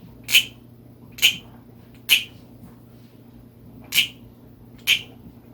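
Wooden frog (frog guiro) croaking as a wooden stick is rubbed along the ridges on its back. There are five short croaks: three about a second apart, a pause, then two more.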